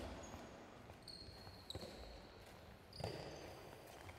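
A handball thudding on the sports hall floor about three times, at the start, near the middle and about three seconds in, with short high shoe squeaks on the court between, echoing in the large hall.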